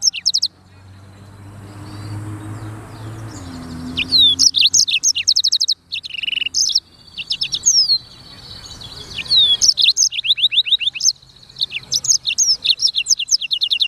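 Black-throated canary (blackthroat) singing in rapid phrases of high, fast trills and sharp chirps, several phrases with short pauses between them. A faint low hum runs under the pauses.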